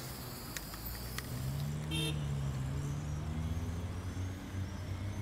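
Traffic rumble with a brief horn-like toot about two seconds in, and faint high chirps in the second half.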